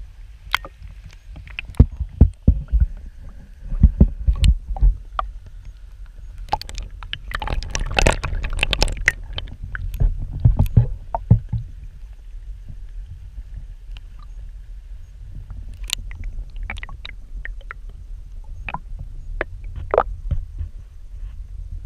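Creek water flowing around a submerged GoPro Hero 4 Black in its waterproof housing: a steady low rumble, with scattered sharp clicks and knocks that come thick in the first half and thin out later.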